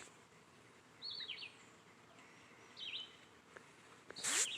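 Goslings peeping: a few faint, high, wavering peeps in short runs, about a second in, near three seconds and a little louder near the end, over quiet outdoor background noise.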